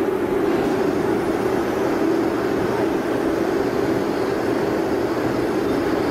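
Boiler membrane-panel bending machine running: a steady mechanical drone with a strong low hum, unchanging throughout.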